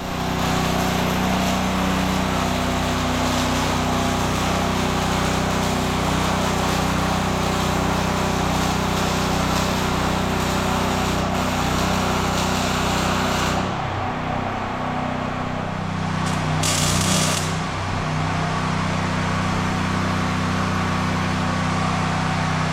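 Steady machinery running: a constant low hum like an engine under a loud hiss. The hiss thins about 14 s in, and a short, sharper hiss comes about 17 s in.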